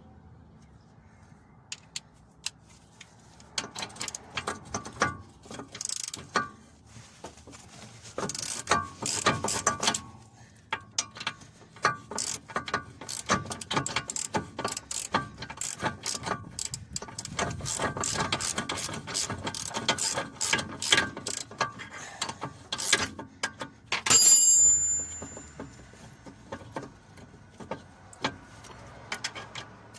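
Hand ratchet wrench clicking in quick runs of strokes, working bolts during a brake job. About three-quarters of the way through comes one loud metallic knock with a brief high ring.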